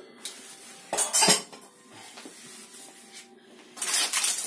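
Two sharp knocks of kitchenware on the counter about a second in, then near the end the dense crackling rustle of oven-toasted baking paper being handled around a baked empanada.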